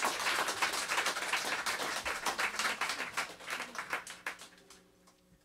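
Audience clapping and applauding, fading out over about four seconds.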